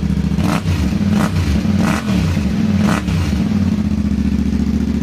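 Yamaha Ténéré 700's parallel-twin engine running through a long Yoshimura slip-on exhaust with its dB killer fitted, idling, then blipped four times in quick succession about half a second in, before settling back to a steady idle.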